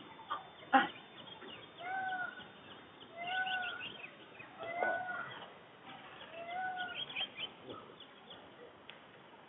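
A bird calling four times, each a short arched note repeated about every one and a half seconds, with smaller birds chirping faintly around it. A single short knock comes about a second in.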